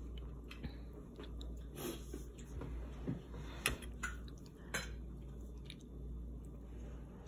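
Metal spoon clinking and scraping against a plate while scooping rice and broth, with a few sharp clinks, the loudest a little past halfway.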